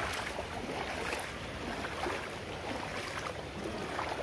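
Shallow floodwater in a waterlogged street, sloshing and lapping steadily.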